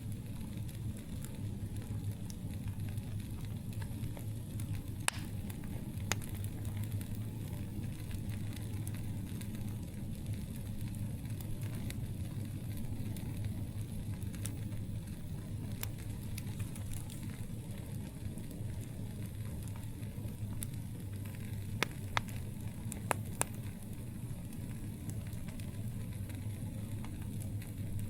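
Campfire burning with a steady low rumble and sparse, sharp crackling pops, a few singly early on and a small cluster of pops near the end.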